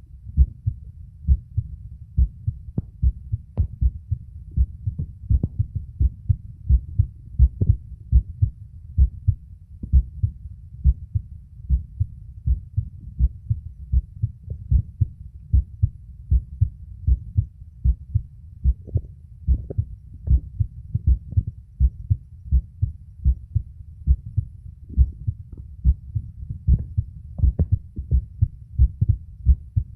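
A man's own heartbeat recorded by a phone microphone held against his chest during auscultation: steady, regular lub-dub beats, low in pitch, repeating a couple of times a second.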